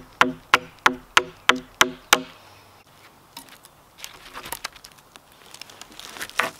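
Hammer blows on wood, about three a second and evenly spaced, each with a short wooden ring, stopping about two seconds in. Then quieter rustling and a few light knocks.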